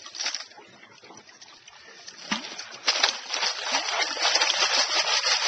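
Water splashing and sloshing as a plastic tub of fossil-bearing gravel is dunked and shaken in shallow creek water to rinse it. A short splash at the start, a quieter lull, then continuous sloshing from about three seconds in.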